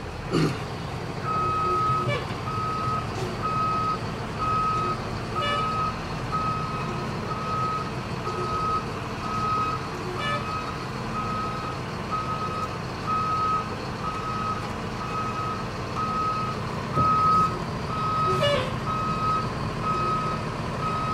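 Thomas C2 school bus's reverse alarm beeping steadily, a little faster than once a second, starting about a second in, as the bus backs up. The diesel engine runs underneath.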